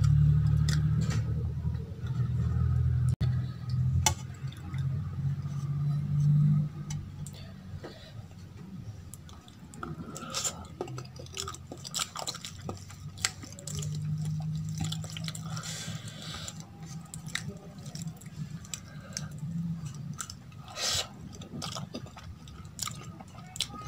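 Thick curry gravy poured from a steel bowl onto rice on a steel plate, then fingers mixing the rice and gravy with wet squishing sounds and many sharp little clicks against the steel plate.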